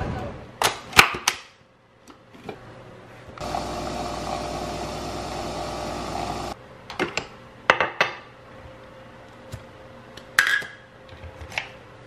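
Coffee being made with a Breville capsule espresso machine and a milk frother. There are sharp clicks and knocks of the machine and a glass, then a steady machine hum for about three seconds that cuts off suddenly. Scattered clinks and taps of the glass and machine parts follow.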